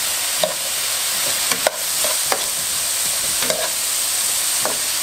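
Chopped onions sizzling in hot oil in a caldero while they are sautéed, with a steady hiss. A utensil stirring them scrapes and clacks against the pot about once a second.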